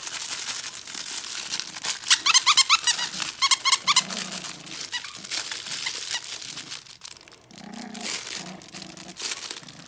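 A puppy chewing a plush squeaky toy, the crinkly paper inside rustling throughout. There are two quick runs of rapid squeaks from the squeaker, about two seconds in and again just before the four-second mark.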